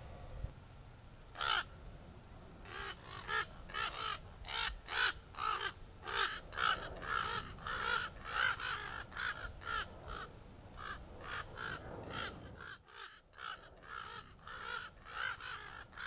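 Ravens calling: one call about a second and a half in, then a long run of short, repeated calls at about two or three a second.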